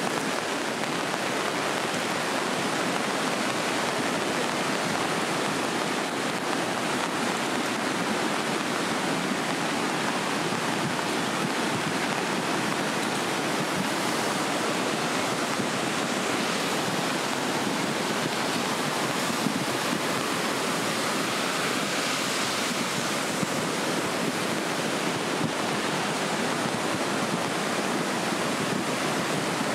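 A river in full flood: a fast, muddy torrent rushing with a steady, dense noise that never lets up.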